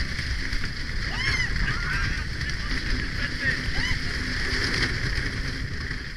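Rumble of a Vekoma wooden roller coaster train running over the track, with wind rushing past the front seat. A few short rising-and-falling yells from riders come about one, two and four seconds in.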